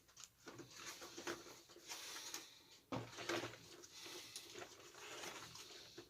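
Faint scattered plastic clicks and rustling from handling a toy RC truck while switching it on.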